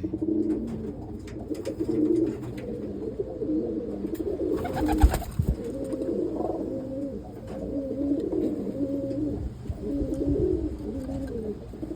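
Roller pigeons cooing: repeated low, wavering coos that go on throughout. About five seconds in there is a brief loud rustle and knock.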